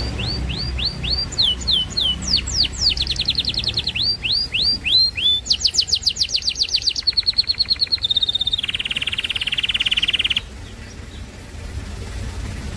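Pet bird singing a long run of repeated whistled notes in changing phrases: rising-and-falling notes a few per second, then fast trills, ending with a lower, steady trill that stops about ten seconds in.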